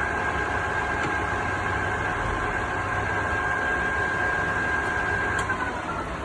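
Mori Seiki MS-850 lathe running with its spindle and headstock gears turning: a steady whine with a low hum underneath. About five and a half seconds in, the whine slides down in pitch as the spindle winds down.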